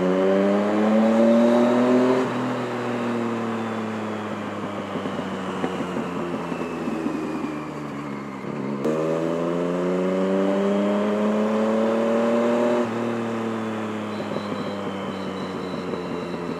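Yamaha MT-09 inline three-cylinder engine through an M4 decat exhaust, heard from inside the rider's helmet. It revs up under acceleration for about two seconds, then winds down, pulls up again about nine seconds in, and winds down once more, with wind noise throughout.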